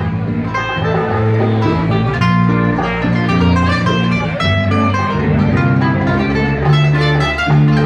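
Instrumental passage of a Spanish-language band ballad: guitar playing over a bass line with a steady beat.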